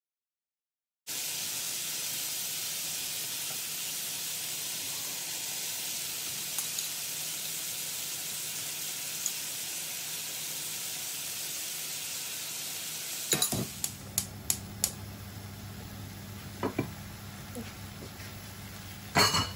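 Marinated chicken kebab skewers sizzling on a hot flat tawa griddle over a gas flame, a steady hiss. About 13 seconds in the sizzle drops quieter and a few light clicks follow.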